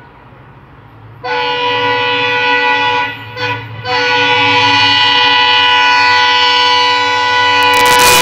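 WDP4D diesel locomotive's horn sounding as the train approaches at about 112 km/h: a long blast about a second in, a short toot, then a long blast of about four seconds. Near the end the loud rush of the locomotive arriving close by breaks in.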